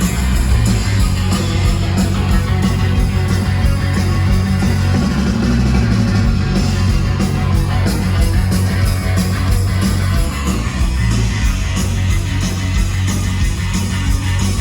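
Rock band playing live and loud: electric guitars over bass and drums, with a dense run of drum hits.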